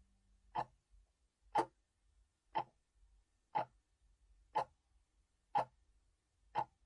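Countdown-timer tick sound effect: seven short, sharp clock ticks, one every second, marking the last seconds of the count.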